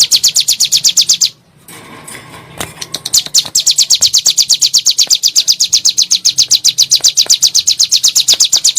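Ciblek gunung, a prinia, singing a rapid, even run of high notes at about ten a second, breaking off for a second or two and then starting again about three seconds in.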